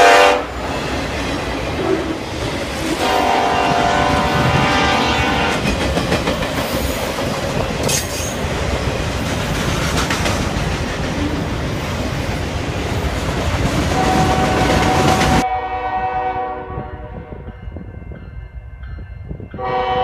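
Freight train rolling past close by: a locomotive air horn cuts off just after the start and sounds again about three seconds in, over the steady rumble and wheel clatter of the passing cars. About fifteen seconds in the sound changes abruptly to a quieter scene where an approaching train's horn sounds, much louder near the end.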